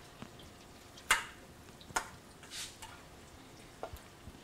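A metal spoon clinks against a plate and the pot in a few sharp taps, the loudest about a second in, as deep-fried chicken pieces are scooped out of hot oil.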